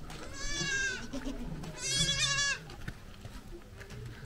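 Young goat bleating twice, a high, wavering call; the second bleat is louder.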